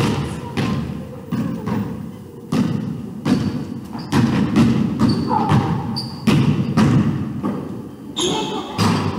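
Basketball bouncing on a wooden gym floor, dribbled in repeated thuds about every half second, echoing in the big hall.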